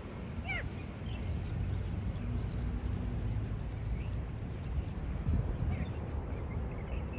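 Small birds chirping, many short high downward-sweeping notes several times a second, with one louder falling call about half a second in, over a steady low rumble.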